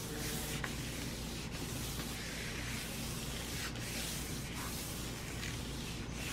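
Hands rubbing a large sheet of paper laid over a gel printing plate, burnishing it to pull a print: a soft, even brushing with a few faint strokes.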